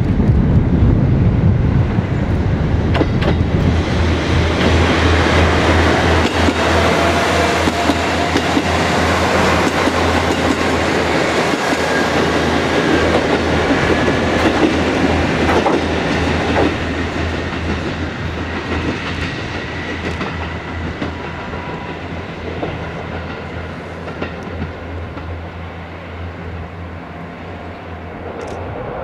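JR KiHa 11 diesel railcars with Cummins diesel engines running past close by, a steady low engine drone under wheel and rail noise with a few clicks over rail joints, then fading steadily as the train pulls away.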